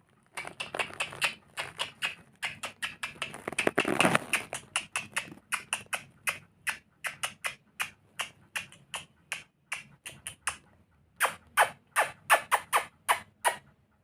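Pet lory parrot making a long series of short, sharp clicking chirps, about two to three a second, bunched together around the fourth second and ending in a louder run of about seven.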